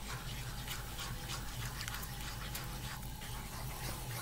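Pan of mushroom and white wine sauce cooking on the stove: a steady soft hiss with faint crackles, over a low steady hum.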